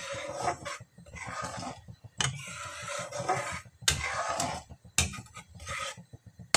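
Steel ladle scraping and stirring chutney in a metal kadhai in repeated strokes, with a few sharp knocks of the ladle against the pan.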